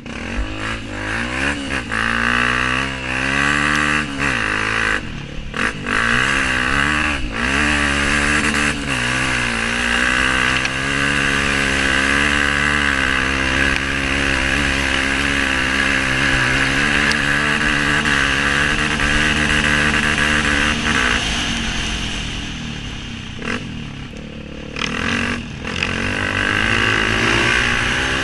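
Honda CRF230 dirt bike's single-cylinder four-stroke engine under way, revving up and down as the rider works the throttle and gears. It holds steadier for a stretch, then the throttle eases off with a few brief cut-outs near the end before it pulls again.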